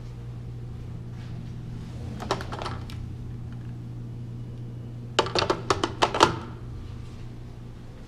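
A few sharp plastic clicks, then a quick run of about seven louder clicks and knocks, from handling a wall-mounted apartment intercom handset and its cradle.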